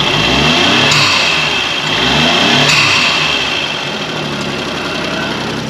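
Suzuki Cappuccino's F6A turbocharged three-cylinder engine revved twice, each rev climbing and then falling back, then settling to a steady idle. It runs on the stock intake with the turbo's recirculation valve blocked off.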